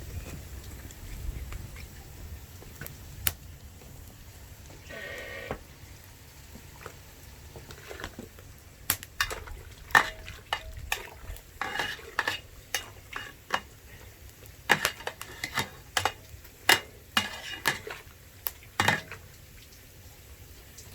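Metal utensils clinking and knocking against a cooking pot while food is stirred, in a dense run of sharp strikes through the second half, one leaving a short ring. A brief pitched squeak sounds about five seconds in.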